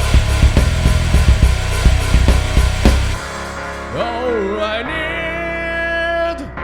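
Rock music: a full band with loud drum kit for about three seconds, then the drums drop out and a sustained vocal or lead melody line carries on over a softer backing.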